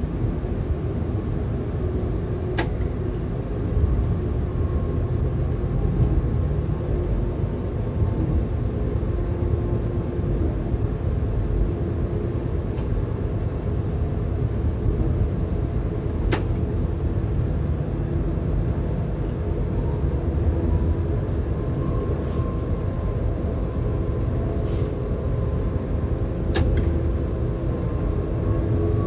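Train locomotive cab while running: a steady low rumble of engine and wheels on the rails, with a faint steady whine and a few sharp clicks.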